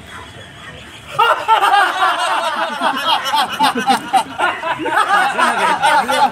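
Laughter, breaking out about a second in and going on in overlapping peals.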